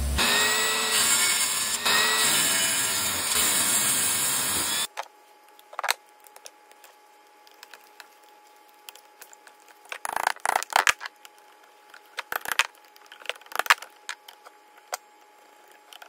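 Bench grinder fitted with a cloth buffing wheel running while a knife blade is pressed to it: a steady whirring noise with a wavering whine. It cuts off about five seconds in, and short scattered scraping strokes of the blade being sharpened by hand follow.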